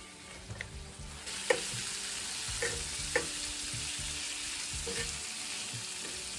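Green asparagus sizzling in a hot frying pan. Metal tongs click against the pan about five times as the asparagus is stirred and turned. The sizzle swells up about a second in.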